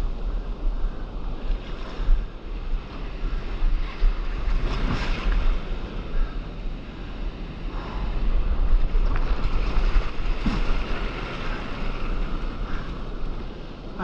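Breaking surf and churning whitewater rushing around a camera held at water level, rising and falling in surges, with heavy wind buffeting on the microphone.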